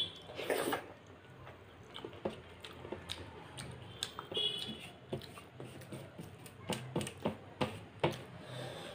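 Eating moong dal khichdi by hand: a mouthful taken about half a second in, then wet chewing with many sharp mouth clicks, and fingers squishing the khichdi against a steel plate. The clicks come thickest near the end.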